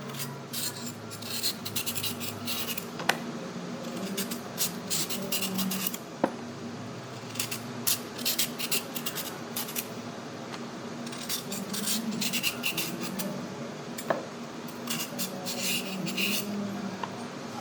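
A carrot being peeled: bursts of quick scraping strokes along its skin, five or so runs of strokes with short pauses between them, and a few sharp clicks.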